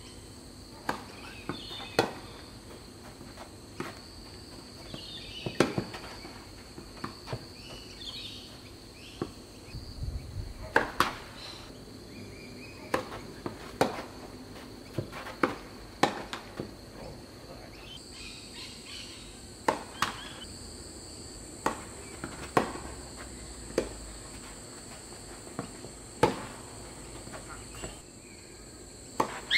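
Tennis rally: racket strikes and ball bounces as sharp single pops every second or two, over a steady high-pitched insect drone.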